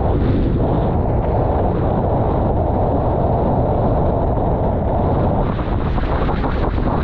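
Steady rush of wind buffeting the microphone, mixed with water rushing along the hull of a Formula 18 racing catamaran sailing at speed.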